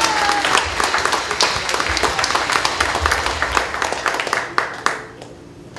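Guests clapping by hand in applause, dense at first and dying away near the end.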